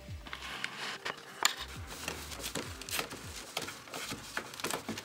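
Faint handling of cardboard: scattered small clicks and rubbing.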